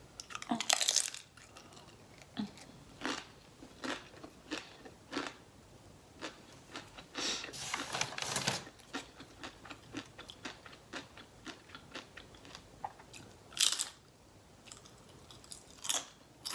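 Close-up chewing and biting of a Chipotle burrito bowl: many small wet mouth clicks and crunches, with a few louder bursts about a second in, around the middle and near the end.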